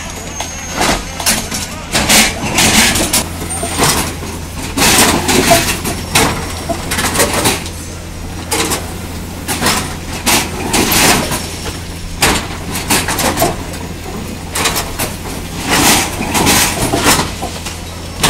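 Track relaying machine working: a steady low engine drone under repeated, irregular metallic clanks and knocks as concrete sleepers are moved along its conveyor.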